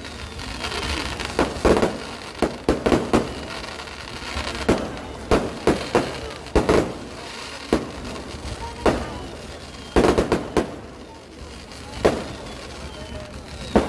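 Fireworks going off: sharp bangs at irregular intervals, several of them in quick clusters.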